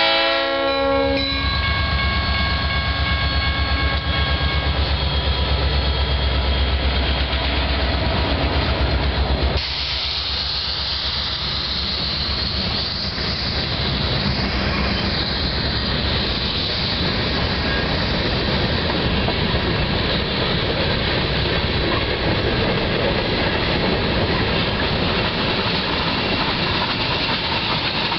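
Freight train passing close: the lead diesel locomotive's horn chord ends about a second in, and the engine's low rumble goes by. After that, freight cars roll past with steady wheel and rail noise and clatter.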